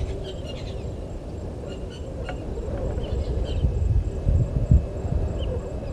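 Bushveld evening ambience: an uneven low rumble with faint, steady insect trilling and a few short bird chirps.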